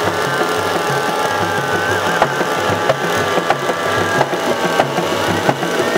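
Several two-stroke petrol chainsaws running together: a steady high whine with many scattered sharp clicks.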